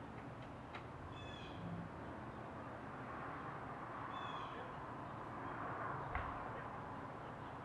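Blue jay nestlings giving two short, high calls about three seconds apart, over a faint hiss. A single small knock comes about six seconds in.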